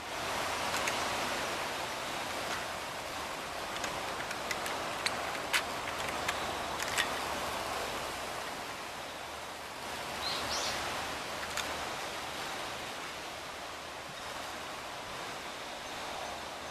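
Steady outdoor background hiss, with a handful of sharp clicks in the first half and one brief high chirp about ten seconds in.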